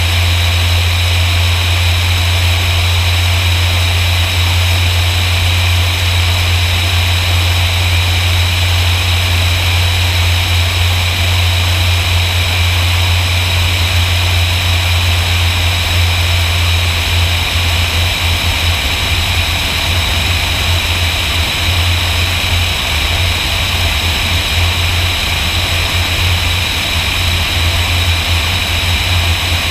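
Steady low drone of a light propeller airplane's engine in flight, with rushing air over the camera mounted outside under the wing.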